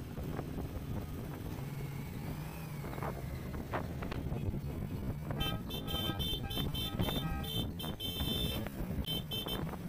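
A vehicle horn tooting in quick short blasts, about five a second, starting a little after halfway and breaking off briefly near the end, over a steady low rumble of engines.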